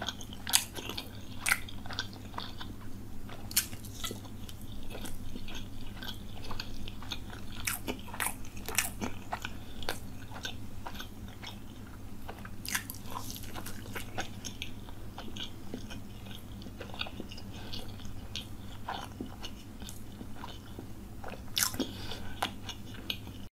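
Close-miked chewing of soft round sweets, eaten by hand: wet mouth smacks and sharp clicks at irregular moments, over a steady low hum.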